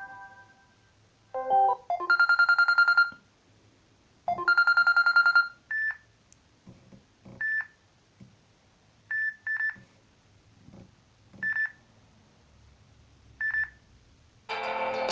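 Samsung Galaxy A6 ringtones playing from the phone's speaker. A short melodic figure and a fast, rapidly repeating trill sound twice, then single short high pings follow one to two seconds apart, and a fuller new ringtone starts near the end.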